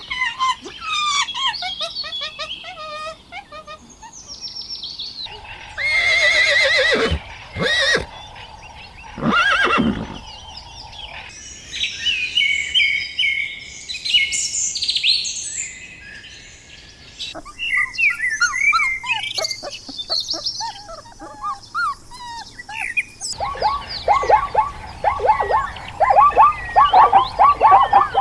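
Birds chirping and calling in a run of short farmyard clips, with two louder, longer animal calls between about six and ten seconds in and a dense run of quick repeated chirps near the end.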